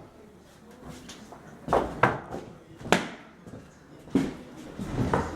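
A few sharp knocks and thumps, unevenly spaced about a second apart.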